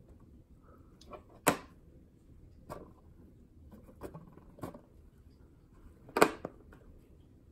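A small rubber balloon being pawed and gently bitten by a cat on a wooden floor: five short taps and rubs, the loudest about a second and a half in and just after six seconds in.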